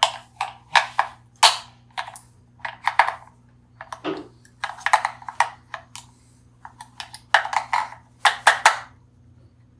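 Hands handling small hard objects, an irregular run of sharp clicks, rattles and rustles in quick clusters, with a faint steady hum beneath.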